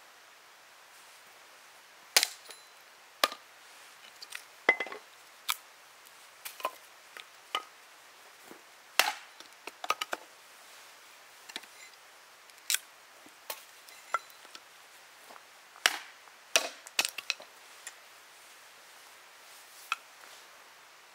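Hatchet splitting kindling on a wooden chopping block: a long series of sharp, irregularly spaced chops and knocks.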